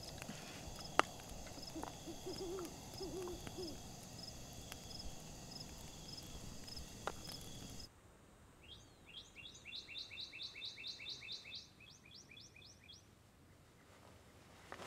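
Night ambience: a campfire crackling with a few sharp pops, insects chirping at an even pace, and an owl hooting a few times about two to three seconds in. About eight seconds in it changes to quieter open-air ambience with a bird singing a rapid run of high, falling notes for about four seconds.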